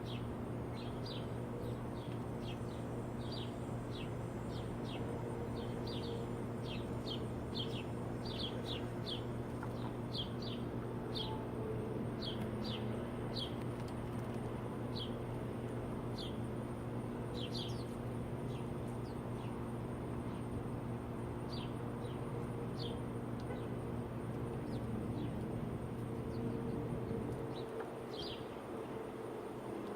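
Small birds chirping: many short, high chirps, some in quick runs, over a steady low hum that drops away near the end.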